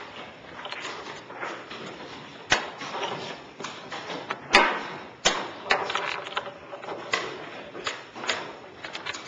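Sharp knocks of chess pieces being set down on the board and the chess clock being hit during a fast blitz game: about a dozen quick knocks, the loudest about four and a half seconds in, over a steady background noise.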